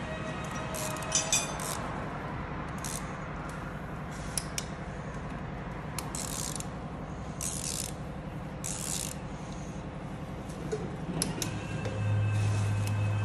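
Hand ratchet wrench clicking in short bursts as bolts on an engine's cylinder head are turned. A steady low hum runs underneath and grows louder near the end.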